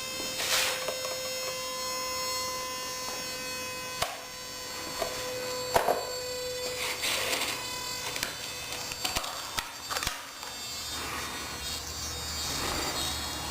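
Small electric RC helicopter's motor and servos buzzing with a steady whine, broken by scattered clicks and short rattles.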